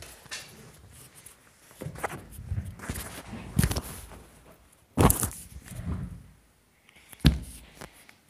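Handling noise from a camera being moved about and covered: rubbing and rustling with a few sharp knocks, the loudest about five seconds in and another near the end.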